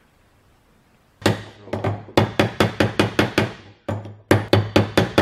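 Hammer striking metal to finish crimping a battery cable terminal: a rapid series of about fifteen sharp, slightly ringing blows, about four a second, in two runs with a short pause near four seconds in.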